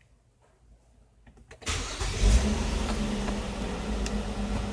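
A 2005 Nissan Murano's 3.5 L V6 starting about a second and a half in, with a quick flare of revs, then settling into a steady idle. The engine has a misfire, a fault that shows in its sound.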